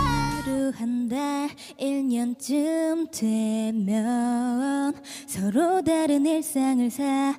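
A young woman singing unaccompanied into a handheld microphone, a slow melody of long held notes broken by short pauses for breath.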